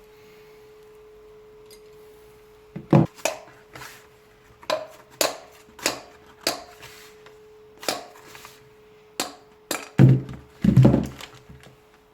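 About a dozen separate knocks, spaced irregularly, driving a bearing out of a Hilti TE 40 AVR rotary hammer's metal housing; the last few, about ten seconds in, are the loudest. A faint steady hum runs underneath.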